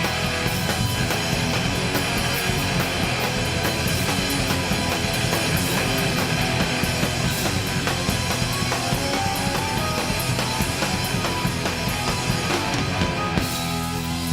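Live rock band playing an instrumental passage with guitar, bass and drum kit. About a second before the end the drums stop, leaving held guitar and bass notes ringing.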